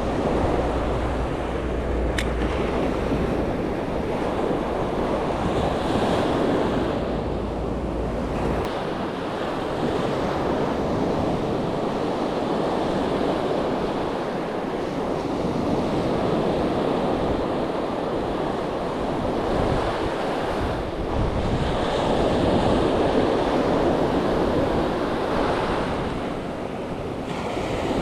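Sea surf washing onto the beach, a steady rushing that swells and eases. Wind buffets the microphone with a low rumble for the first several seconds.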